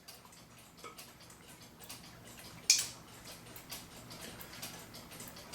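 Light clicks and taps of small metal clock-movement parts being handled, with one sharper click about two and a half seconds in.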